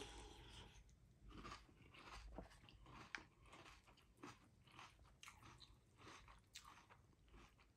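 Faint, close crunching of a person chewing a mouthful of Fruity Pebbles cereal in milk, a string of small irregular crunches.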